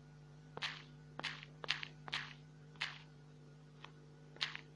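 Taps on a smartphone's on-screen keyboard as a search word is typed letter by letter: about seven short, sharp taps at uneven intervals over a steady low hum.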